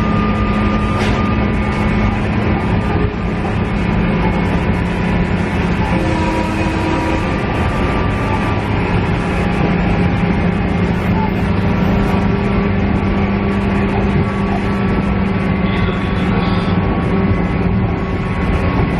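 Inside a JR East KiHa E130 diesel railcar under way: a steady drone from the diesel engine, with a few steady tones, over continuous wheel-on-rail running noise.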